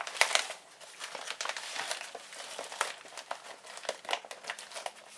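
Packaging crinkling and crackling in quick, irregular bursts as it is handled and folded closed, with the sharpest crackles near the start.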